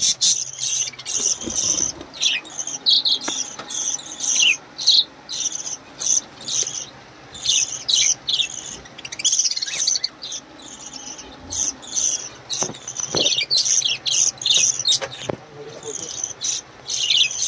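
Budgerigars chirping: a busy run of short, high chirps, several a second, with a few sharp knocks partway through.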